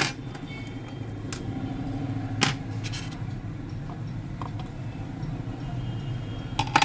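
Sharp clicks and small metallic clinks of tools and small parts being handled while a Mac mini is taken apart, about five in all, the loudest at the start and near the end, over a steady low hum.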